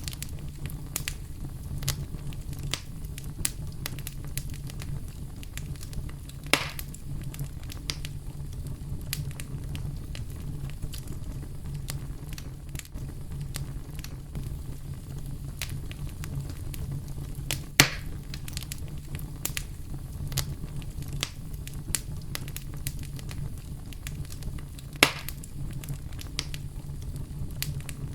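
Wood campfire crackling steadily with scattered small snaps and three louder pops spread through, over a constant low rumble of brown noise.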